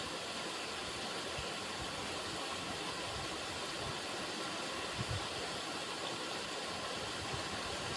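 River water running and rushing steadily, with a brief low bump about five seconds in.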